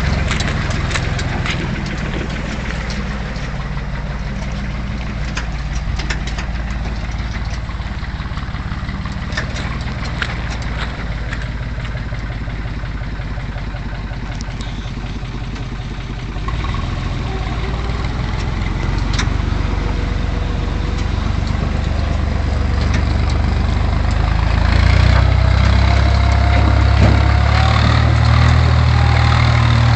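UTB Universal 445 tractor's diesel engine running steadily as it pulls a loaded trailer, growing louder in the second half. Scattered clicks and rattles are heard along with it.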